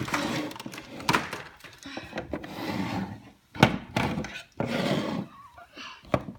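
Cardboard boxes and plastic mini football helmets being handled and set down: several sharp knocks, the loudest about halfway through, with rustling in between.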